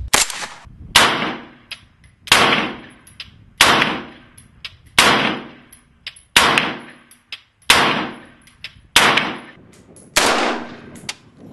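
AR-15 rifle in 5.56 fired as single aimed shots, about nine in all, spaced a little over a second apart, each sharp crack trailing off in echo. Light clicks between some of the shots.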